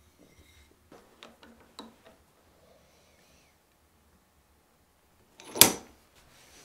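A few light wooden clicks and taps as a hammer handle is handled and set in a bench vise, then one sharp knock about five and a half seconds in.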